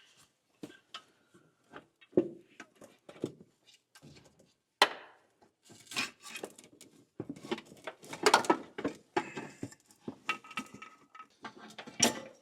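Hand tools and metal engine parts clinking, clicking and knocking in irregular taps during an engine top-end teardown. The handling gets busier in the second half.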